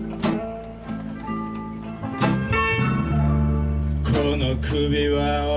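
Live blues band playing an instrumental passage: strummed guitars over a bass line, with a sharp accent about every two seconds.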